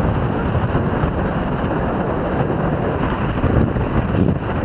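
Strong wind blasting across the microphone aboard a Hobie 16 catamaran under sail: a steady, loud rushing noise with no let-up.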